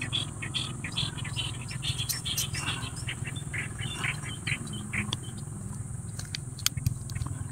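Small birds chirping in short, irregular calls, with a few sharp clicks in the second half.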